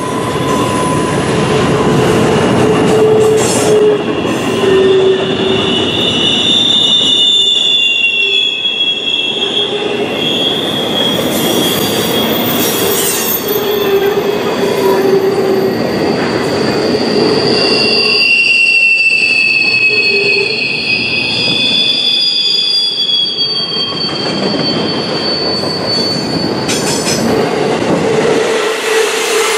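Double-stack intermodal freight cars rolling past with a steady rumble of steel wheels on rail, overlaid by long high-pitched wheel squeals that waver in pitch and come and go.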